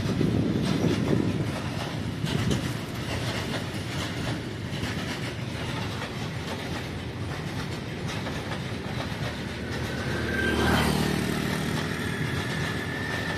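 Freight wagons rolling past, their steel wheels clicking over the rail joints in a steady rumble. The rumble swells about ten seconds in, and a thin high wheel whine comes in near the end.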